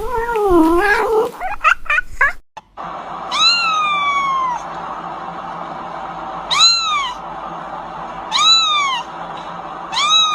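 A cat meowing. A wavering cry comes first, then after a short break four separate high meows a couple of seconds apart, each rising then falling in pitch, the first the longest.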